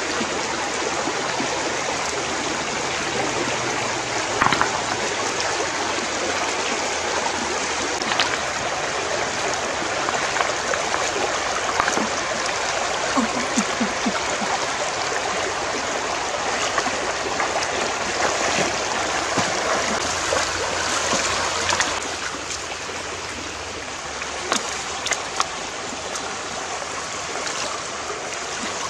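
Shallow rocky stream running steadily, with a few short splashes scattered through it as someone wades and reaches into the water among the stones. The running water gets a little quieter about two-thirds of the way in.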